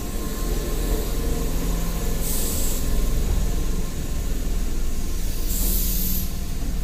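Tobu Railway electric commuter train running past and away on snowy track: a steady rumble of wheels and motors. Two short bursts of hiss cut through, about two seconds in and near the end.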